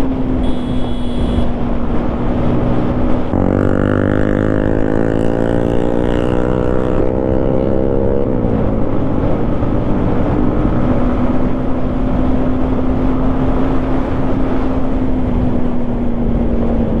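Yamaha MT-15's single-cylinder engine on its stock exhaust, heard from the rider's seat: running steadily, then about three seconds in the throttle opens and the engine note climbs for about five seconds before dropping back to a steady run.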